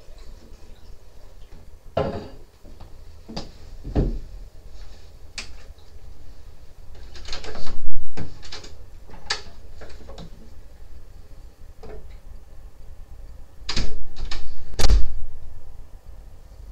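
A door and wardrobe doors being handled: scattered clicks and knocks, with louder clusters of clunks about halfway through and again near the end.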